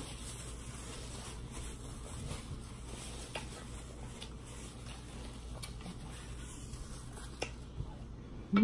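Quiet eating sounds close to the microphone: a paper napkin rubbed over the mouth and hands, chewing, and a few small sharp clicks. A brief vocal sound comes at the very end.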